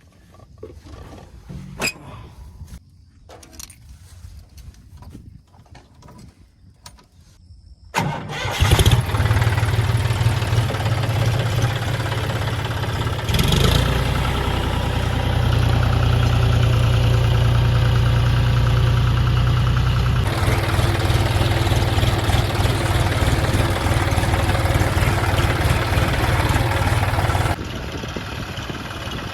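A diesel tractor engine starts abruptly about eight seconds in, after a quiet stretch with a few faint clicks. It then runs steadily and loudly, dropping to a lower level near the end.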